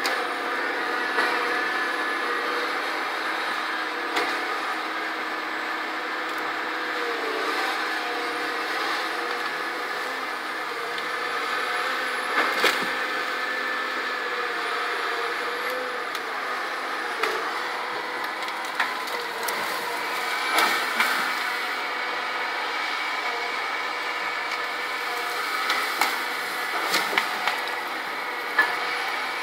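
Caterpillar 523B tracked feller buncher's diesel engine running steadily under load as the machine works, with sharp knocks and cracks scattered through it several times.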